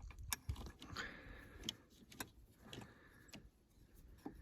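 Faint, scattered metallic clicks and light knocks from hands and tools working around a snowmobile's belt and clutches.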